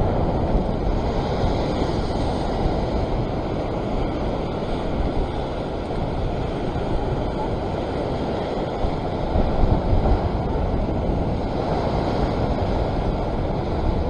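Ocean surf washing against the rocks, a steady rushing noise, with wind buffeting the microphone and rumbling, strongest about ten seconds in.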